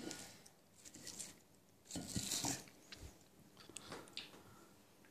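Faint chewing and crunching of raw salad leaves, with one louder crunch about two seconds in and a few small clicks.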